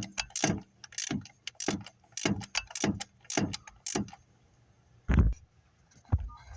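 Ratchet wrench clicking in short, even strokes, about two a second, tightening the bolts of a water outlet; the strokes stop about four seconds in. A dull thud follows about five seconds in, and a lighter one a second later.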